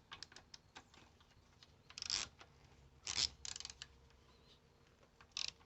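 Hand tools working metal as a ground wire is fastened to the engine block: scattered light clicks with three short, louder scraping rattles about two seconds in, around three seconds in, and near the end.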